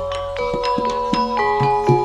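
Gamelan-style music for a kuda kencak dance: a quick melody of struck, ringing metal keys, about three or four notes a second, with short low notes beneath and a steady low electrical hum.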